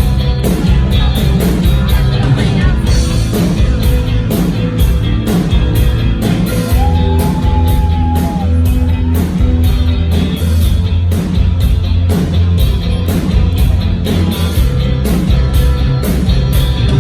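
Rock band playing, with heavy bass and drums striking at a regular beat.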